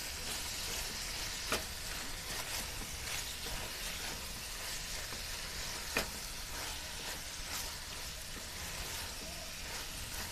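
Macaroni being stirred with a spatula in a sizzling sauce in a metal pot: a steady sizzling hiss with scraping, and two sharp knocks of the spatula against the pot, about a second and a half in and again about six seconds in.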